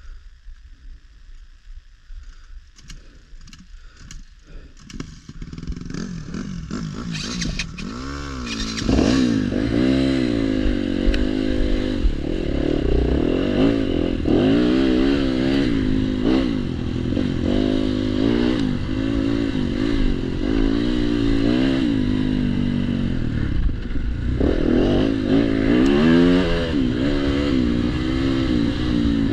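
Yamaha dirt bike engine, quiet at first, then picking up about six to nine seconds in and revving up and down as the bike rides along the trail, with clatter from the bike over rough ground.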